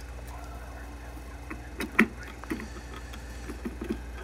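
A few short clicks and knocks as a VHS tape is handled and fitted onto a tape cleaning machine, the loudest a sharp click about halfway through. A steady low hum runs underneath.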